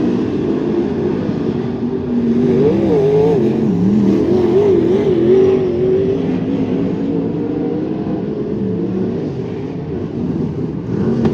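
Several wingless sprint car engines on track during hot laps, their pitch rising and falling as the cars accelerate and lift around the oval.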